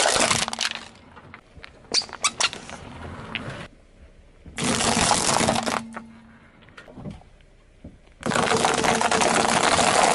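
A car tyre crushing one object after another: an aluminium drink can, nut shells and dry penne pasta. Each gives a loud crunching burst of about a second, four bursts in all, the second one made of several sharp cracks.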